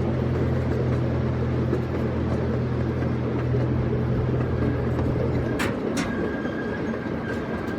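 Zoo passenger train running, with a steady low drive drone that drops out about five and a half seconds in. Two sharp clicks follow, then a faint high steady tone.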